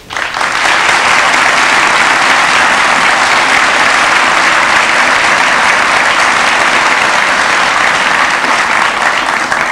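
Studio audience applauding steadily, welcoming a speaker to the lectern; the clapping starts at once and fades out near the end.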